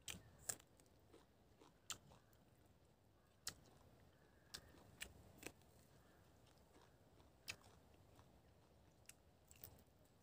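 Close-up eating: crisp bites into raw spring onion and chewing, with about ten sharp crunches at irregular intervals.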